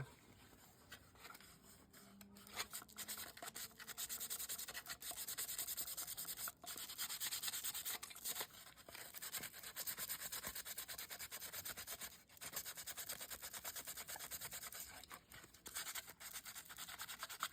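Sandpaper rubbing back and forth by hand on a small Chevrolet RC crawler hard body: a quick, steady run of scratchy strokes that builds up about two seconds in, with a couple of brief pauses.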